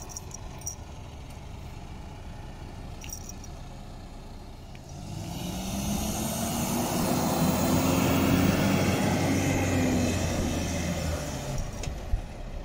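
Four-wheel-drive ute's engine working in soft sand as it drives up and turns, its pitch rising and then easing off over several seconds. A single sharp knock comes near the end.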